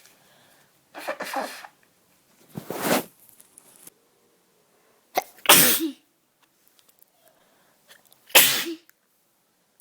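A person with a cold or illness sneezing repeatedly: about four sharp sneezes a couple of seconds apart, the first led in by a short voiced breath.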